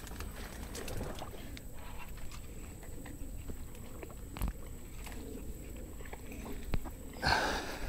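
Buttonbush branches and leaves rustling and snapping as someone pushes through the thicket, with scattered sharp clicks and a louder burst of noise near the end.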